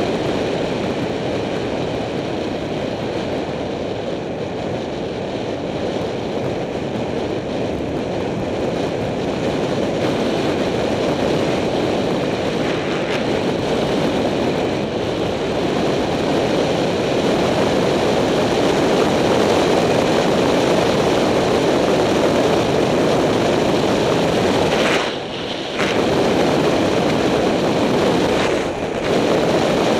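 Wind rushing over a Contour HD helmet camera's microphone on a fast bicycle descent, mixed with tyre noise on the asphalt. The rush grows louder past the middle and drops away briefly twice near the end.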